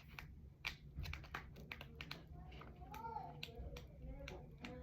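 Faint, irregular light clicks and taps, with a faint wavering tone around the middle.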